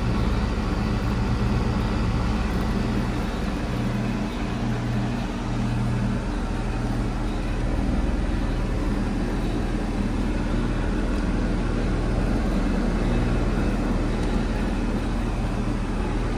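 Rheem heat pump's outdoor unit running in heat mode: a steady low hum from the compressor under the even rush of the outdoor fan.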